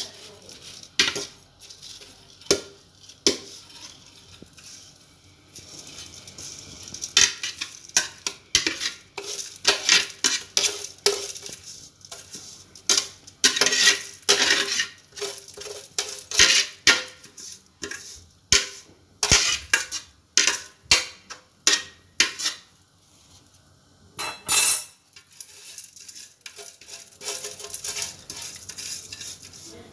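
Metal couscoussier steamer basket clinking, knocking and scraping against a glazed clay dish as steamed vermicelli is tipped and scraped out of it. The clinks come irregularly, with one louder knock late on.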